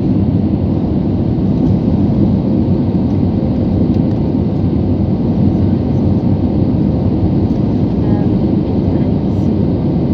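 Steady low jet-engine and airflow noise heard inside an airliner cabin, with a faint steady hum.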